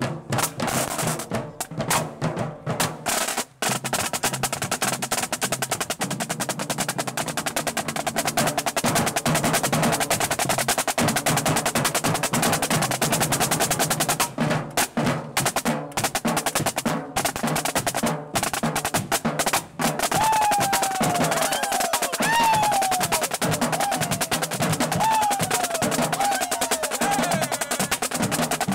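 Long strings of Chinese firecrackers going off together: a dense, unbroken rattle of rapid pops with a few brief gaps. In the second half, short falling tones sound over the crackle about once a second.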